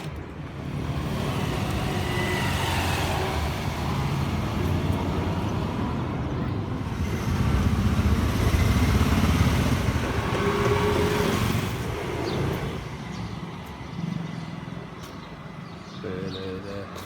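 Motor vehicle traffic running past, a steady low rumble that swells loudest in the middle and fades toward the end.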